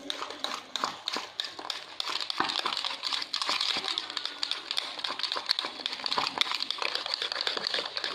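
Wire whisk beating thick sweetened strained yogurt (shrikhand) in a bowl: fast, continuous clicking and scraping of the wires against the bowl. The whisking works in powdered sugar so that no sugar granules are left.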